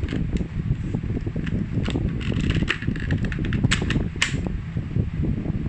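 Sharp plastic clicks and snaps as a motorcycle helmet's visor is unclipped from its side-pod mechanism, a series of them, most in the middle, over a steady low rumble.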